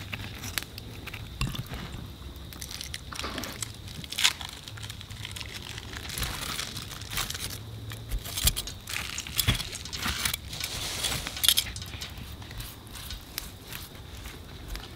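Metal tongs clicking and a paper towel crinkling under crisp fried catfish fillets as they are turned and brushed with a silicone basting brush; scattered crackles, busiest through the middle, over a steady low hum.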